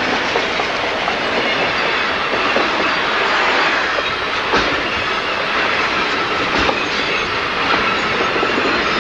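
Freight cars, a covered hopper and tank cars, rolling past close by: a steady rumble of steel wheels on rail, with sharp clacks as wheels cross rail joints, the loudest about halfway through and again two seconds later.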